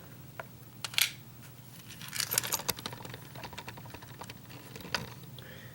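Small metal lock pins and tools being handled, giving light clicks and taps: a sharp click about a second in, a cluster of clicks around two and a half seconds, and another near the end.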